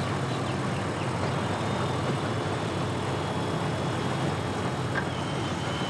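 Boat motors running steadily at the ramp, a continuous low engine drone with a noisy wash over it.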